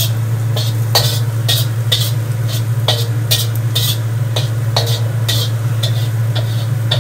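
Spatula scraping and tapping against a wok about twice a second as garlic is stirred while it fries in olive oil, over a steady low hum.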